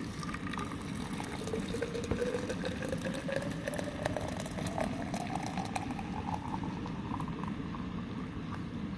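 Coffee being poured into a cup, with a gurgling splash whose pitch rises steadily as the cup fills.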